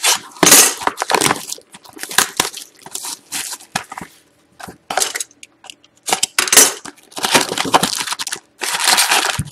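Plastic shrink wrap being cut and stripped off a cardboard trading-card box, then foil card packs handled. The sound is a run of loud, irregular crinkling and tearing, with a lull around the middle.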